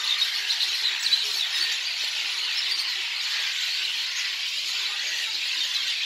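A large flock of birds calling all at once: a dense, unbroken chatter of many overlapping high-pitched calls.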